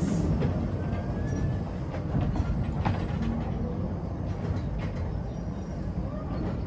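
Narrow-gauge train pulling away, its wagons rolling with a steady low rumble and a few sharp clicks from the wheels and couplings.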